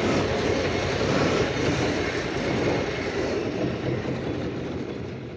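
Motorcycle engine running at low speed and idling as the bike comes to a stop, with steady road and wind noise; the sound fades out near the end.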